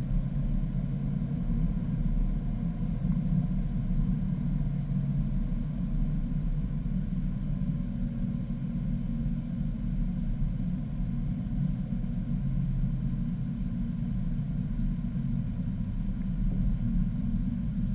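Steady low drone of engine and road noise heard inside the cabin of a 2011 BMW M3 with its V8, driving at an even pace on track without hard revving.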